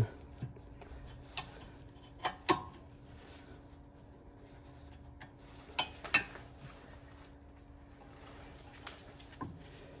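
Scattered sharp metal clinks and taps of a 13 mm spanner and pliers working a bolt on a rear brake caliper, about seven in all, loudest in pairs a couple of seconds in and near the middle. A faint steady hum runs underneath.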